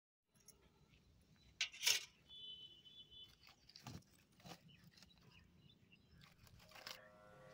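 Wood fire crackling under a cooking pot with a few sharp snaps, the loudest about two seconds in, over quiet outdoor background noise. A short high chirp is heard about halfway through, and flute music starts near the end.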